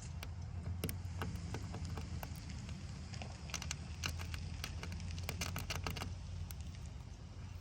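Razor blade picking and scraping loose glass fragments out of a windshield chip: a run of short, scratchy clicks, thickest in the middle, over a steady low rumble.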